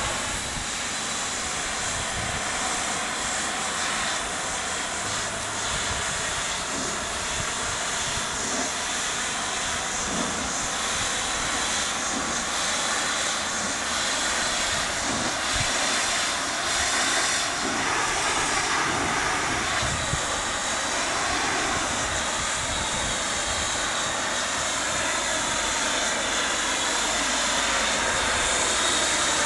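Hot-water pressure washer spray blasting grime off the siding of a modular building: a steady, loud hiss of the jet on the wall, growing slightly louder near the end.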